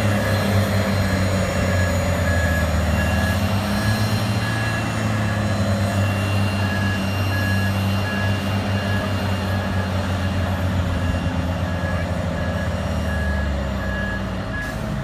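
Heavy diesel engines of a Ropa Tiger beet harvester and the tractors towing it, running steadily under load as they drag the bogged-down harvester through mud. A high electronic warning beep repeats at a regular pace over the engines, and the engine noise eases slightly near the end.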